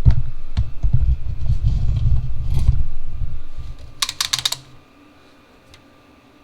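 Close handling noise: low rumbling knocks and scattered clicks, with a quick run of sharp clicks about four seconds in. Then it drops to a faint steady hum.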